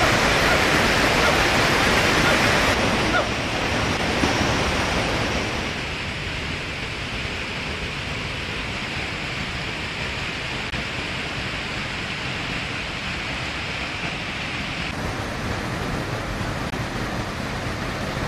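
Steady rushing noise with no distinct events. It is louder at first and settles lower about six seconds in.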